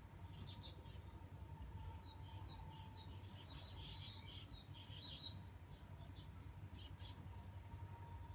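Faint chirping of small birds, with a busy run of quick high chirps in the middle, over a faint steady low hum.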